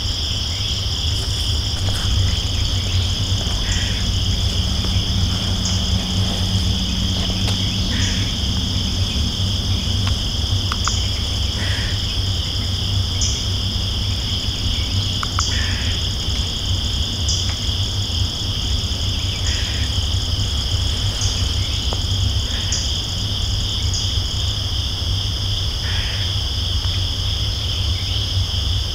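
Steady chorus of insects in the woods, a continuous high-pitched buzzing drone on two pitches, with a short call repeating about every two seconds. A low steady rumble sits underneath.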